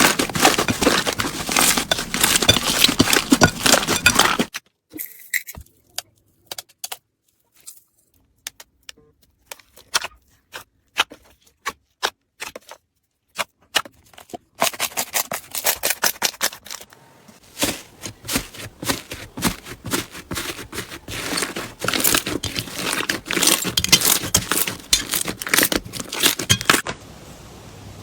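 Slime being squeezed and pressed, giving dense crackling and popping. About four seconds in it thins to scattered single pops for about ten seconds, then the dense crackling comes back.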